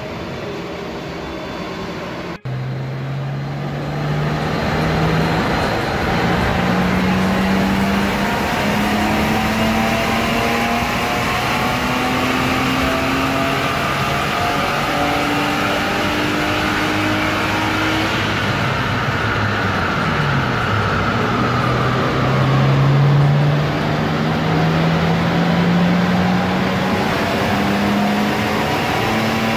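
BMW E34 525i's M50B25 2.5-litre straight-six running under load on a roller dyno, with tyres turning on the rollers, starting about two seconds in. The engine note climbs in steps, dips briefly about two-thirds of the way through, then rises steadily again as the revs build. This is a baseline power run on the car's original exhaust.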